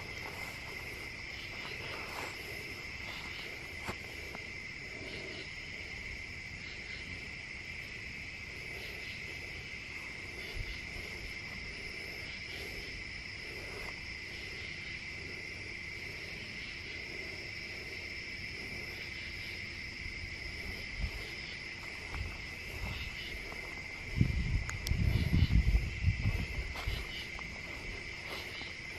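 Steady, unbroken high-pitched chorus of crickets chirping. Near the end, a few seconds of low thumps and rumbling break in over it.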